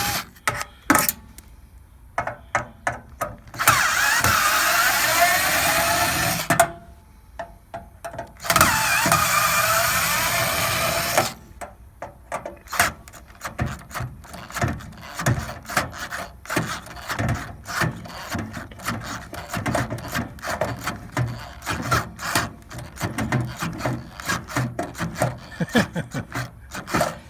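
Cordless drill running in three bursts of a few seconds each, backing out screws, its motor pitch wavering: the battery is running low and sounds weak. After the bursts comes a long run of quick light clicks and knocks of metal parts being handled.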